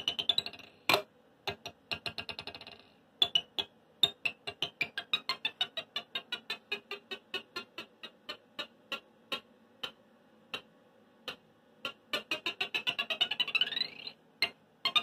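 Wire string picked up by a piezo contact mic and damped with a green scrubby pad, played in short choppy notes and quick runs, with a rising sweep near the end. It sounds crunchy, much like an 80s digital synth.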